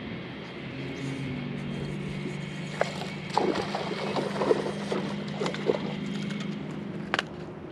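A hooked largemouth bass splashing and thrashing at the water's surface for a few seconds in the middle, over the steady hum of a bass boat's electric trolling motor. A single sharp click near the end.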